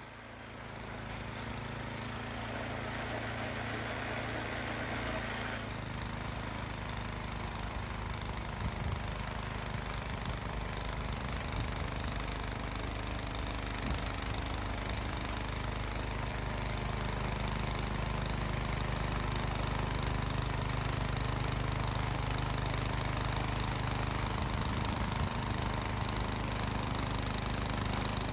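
Snapper 1030 two-stage snowblower running steadily under load while its auger and impeller chew through heavy, saturated wet snow and throw it from the chute. The sound grows fuller about six seconds in.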